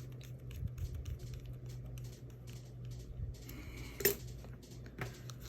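Light, scattered clicks and taps of small parts being handled and fitted on a Shimano SLX DC baitcasting reel, with a sharper click about four seconds in. A steady low hum runs underneath.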